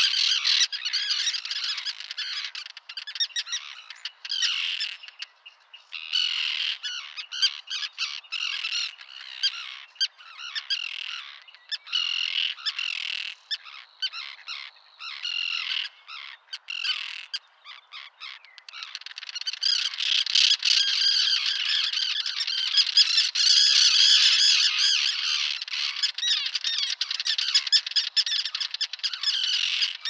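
A common tern colony calling: many high, harsh calls overlapping. They come in broken, sparser bouts through the middle, then thicken into a dense, continuous chorus about two-thirds of the way in.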